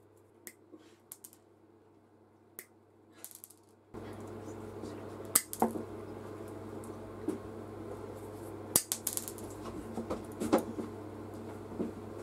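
Small, sharp metallic clicks and taps as a thin steel wire is worked into the joint of a pair of nickel-plated pliers, the wire tapping and scraping against the jaws. A steady background hum comes in suddenly about four seconds in.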